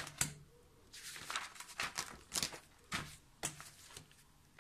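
Paper rustling and handling as a page of a spiral-bound textbook is turned. A sharp click at the start is followed by a run of short, dry rustles that die away about three and a half seconds in.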